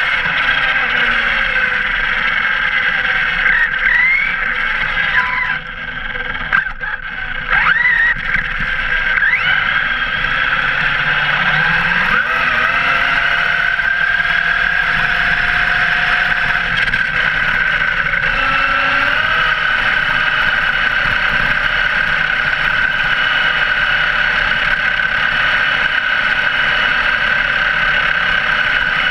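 Arrma Kraton V3 RC truck's brushless motor and drivetrain, heard from on board, whining loudly under 6S power. The pitch rises and falls with the throttle through the first ten seconds or so and drops off briefly around six seconds in. It then holds a steady high whine at speed.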